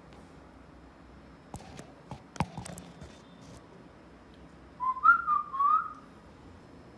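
Alexandrine parakeet whistling a short phrase of several quick upward-sliding notes about five seconds in, after a few sharp clicks around two seconds in.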